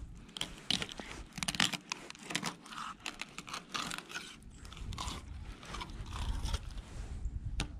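Fillet knife cutting a crappie on a plastic cutting board: an irregular run of short cutting and scraping strokes as the blade works along the fish's bones. The blade hitting the bone is the sign that the cut is following the skeleton closely.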